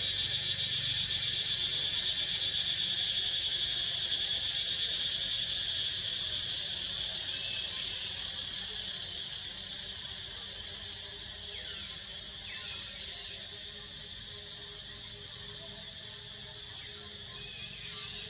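Steady, high-pitched insect chorus from the forest, fading noticeably from about six seconds in, with a few faint short calls over it.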